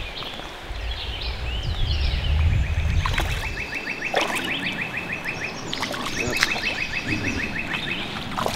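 Fly reel clicking in two rapid runs as line is wound in on a hooked rainbow trout, with birds chirping over running creek water in the first seconds.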